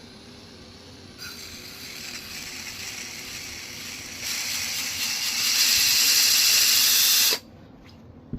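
Oscillating multi-tool running with its blade held against a blade sharpener, a hissing grind that builds in loudness over several seconds and then cuts off sharply about seven seconds in.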